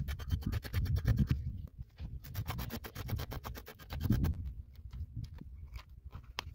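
Knife blade scraping scales off a trout in rapid strokes, about ten a second, in two runs with a short pause between. The scrapes thin out to a few scattered ones near the end, over a low rumble.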